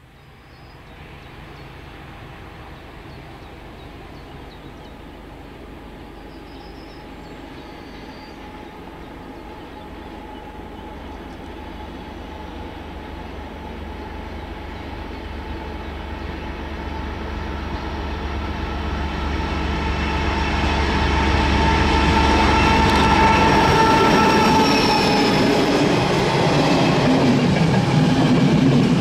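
ČD class 754 diesel locomotive approaching with its train. The engine noise grows steadily louder over about twenty seconds, with a whine in it that drops slightly in pitch as the locomotive draws level near the end.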